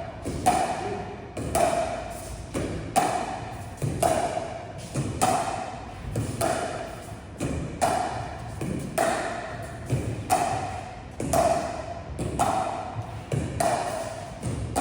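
Pickleball paddles hitting a plastic ball in a steady back-and-forth dink and volley rally. A sharp pock comes every half second or so, each with a short ringing tone.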